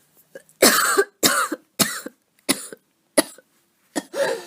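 A woman coughing in a series of about six short coughs, the first the longest and loudest; she is recovering from a cold and has asthma.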